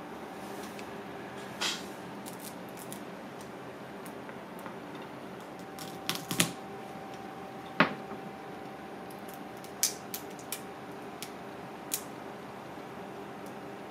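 Cooked crab leg shells cracking and snapping by hand and a knife cutting through shell on a plastic cutting board: scattered sharp cracks and clicks, the loudest about six and eight seconds in, over a steady kitchen hum.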